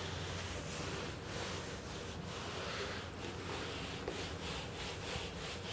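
Whiteboard eraser wiping marker writing off a whiteboard in repeated rubbing strokes.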